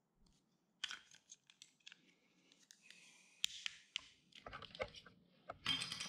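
Blue plastic MC4 spanner tool tightening the cap nut on an MC4 solar cable connector: faint scattered plastic clicks, with a short scraping rustle about three seconds in and a quicker run of clicks near the end.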